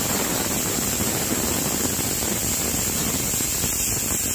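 Stovetop pressure cooker whistling: its weight valve lifts and vents a steady, loud, hissing jet of steam. This is the cooker's first whistle, the sign that full pressure has built up inside.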